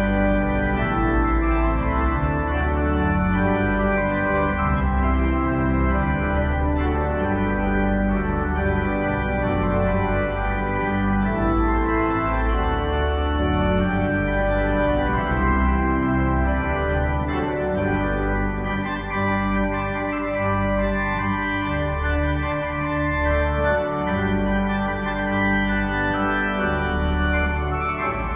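Church pipe organ playing full sustained chords over a deep pedal bass that moves from note to note.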